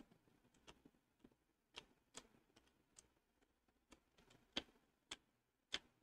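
Near silence with faint, scattered clicks of a computer mouse being worked. The three loudest clicks come in the last second and a half.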